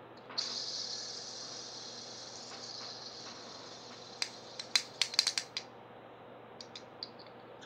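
Two handheld fidget spinners, one red and one white, spinning with a high, even whir that starts about half a second in and slowly fades as they lose speed. A cluster of sharp clicks comes in the middle, with a few fainter ones near the end, as the spinners are handled.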